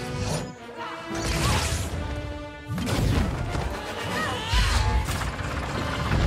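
Action-film soundtrack: a music score mixed with crashing impact effects, with a heavy low rumble coming in about halfway through.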